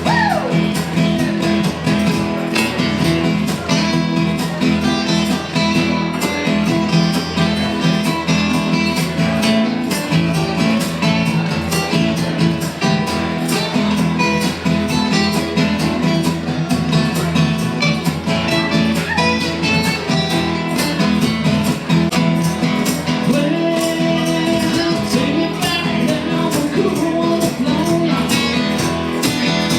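Full band playing rock-country music, with guitars over a steady drum beat.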